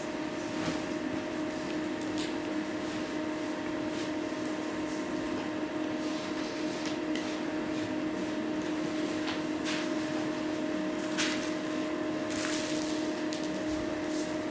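A steady low hum at an even level, with scattered faint clicks and rustles and one sharper click about eleven seconds in.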